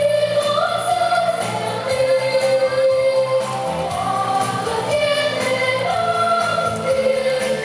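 Recorded song with voices singing a held, moving melody over a steady instrumental backing, played as accompaniment for a dance.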